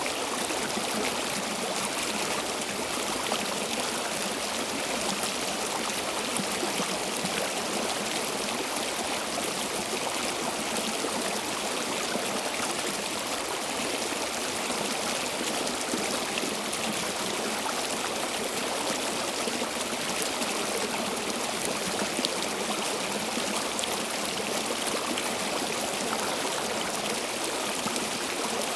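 Stream water flowing and trickling steadily, an even rushing with no breaks.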